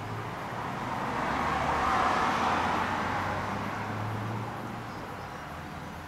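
A road vehicle passing by: a rushing noise that swells to a peak about two seconds in and fades away by about five seconds.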